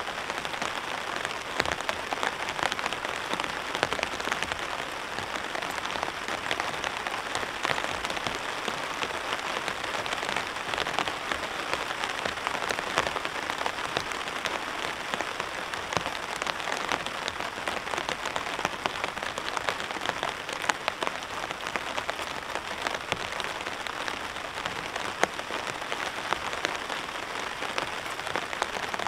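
Steady rain falling on a camping tarp: a dense, even hiss thick with the taps of individual drops.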